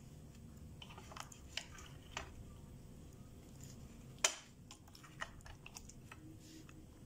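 A spoon stirring and folding thick slime in a glass bowl: faint sticky squelches and scattered small clicks, with one sharper click about four seconds in.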